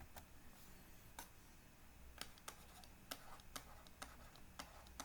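Near silence: quiet room tone with a handful of faint, irregular clicks and taps.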